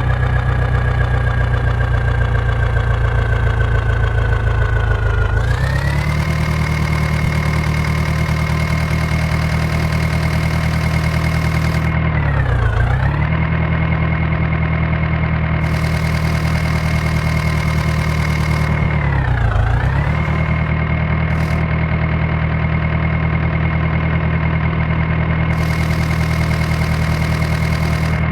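Diesel engine running steadily. Its pitch sags a little for the first few seconds and then steps up, and later it dips sharply and recovers twice, about seven seconds apart.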